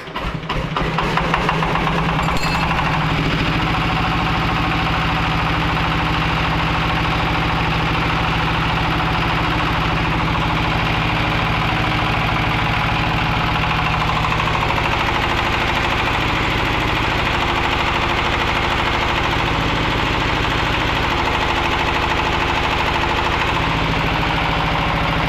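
Single-cylinder horizontal diesel engine of a 15 kW open-frame generator set catching in the first second or so, then running steadily with an even diesel knock, on its test run.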